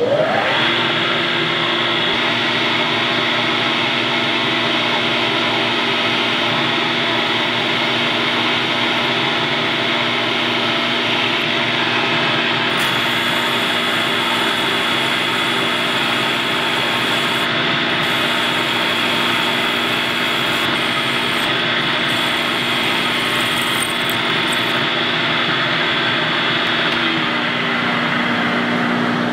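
Vertical milling machine's spindle spinning up and then running steadily with a high whine, while a centre drill in a 1/4 inch collet cuts a hole into a metal hub.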